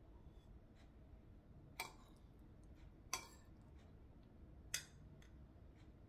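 Three sharp clicks of a kitchen utensil being handled, about one and a half seconds apart, over faint room tone.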